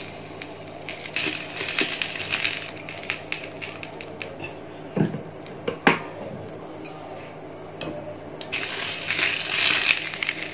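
Cooking oil pouring from a plastic bottle into a non-stick frying pan, a splashy trickle, with two sharp clicks about halfway through as the bottle is handled.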